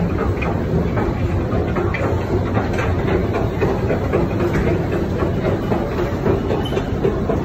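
New York City subway train running through the station: a loud, steady rumble with irregular rattling of the wheels on the track.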